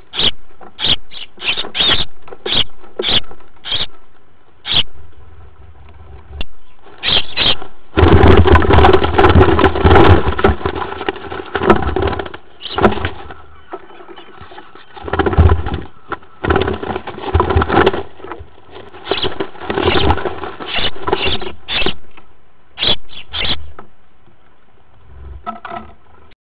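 Sparrows fighting inside a wooden nest box: a run of short sharp chirps, then a loud stretch of scuffling and wing-flapping in the straw and against the box walls about a third of the way in, and more chirps and scuffles after.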